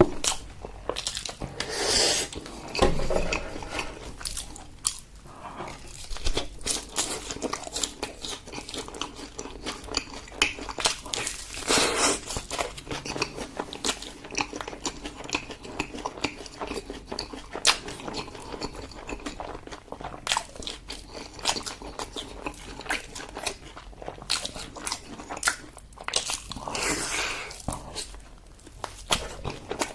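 A person eating braised pork leg close to the microphone: continuous chewing full of small wet clicks, with a few louder bites.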